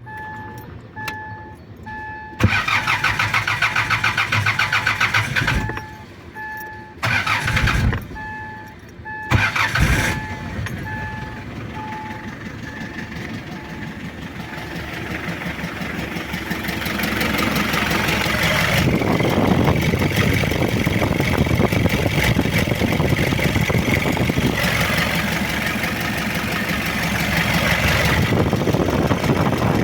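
Diesel car engine cranked on the starter in several short tries over a repeating warning chime, catching about ten seconds in. It then runs with a rough, loud noise that the mechanic takes as a sign of a faulty engine, unfit to keep. It gets louder for two stretches.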